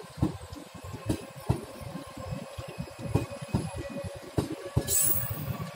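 Duronto Express LHB coaches running past at speed on the adjacent track: a continuous rumble with repeated wheel clatter over the rail joints, and a brief high hiss about five seconds in.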